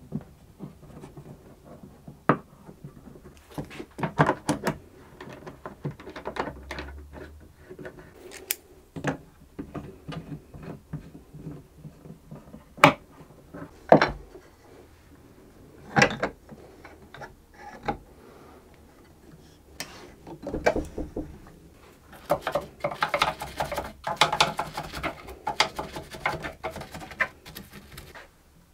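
Cello clamps being fitted and screwed down along the edge of a cello as its top is glued back onto the ribs: scattered sharp clicks and knocks of wood and metal, with a dense run of rattling clicks about three-quarters of the way through.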